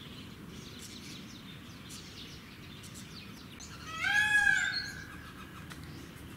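Birds chirping faintly, then about four seconds in one loud bird call lasting about a second, its pitch rising and then falling.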